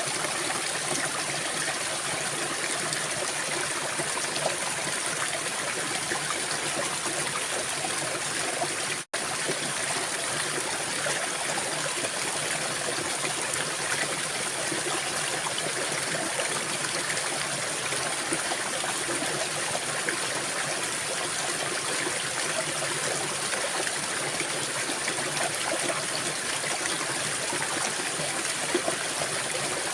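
Stream water flowing and trickling steadily. The sound drops out for an instant about nine seconds in.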